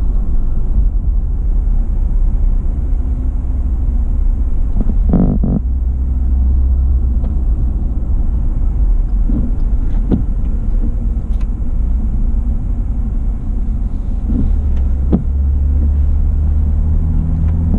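Steady low rumble of a car driving, engine and road noise heard from inside the car through a dash-mounted action camera, with a few brief knocks about 5, 10 and 15 seconds in.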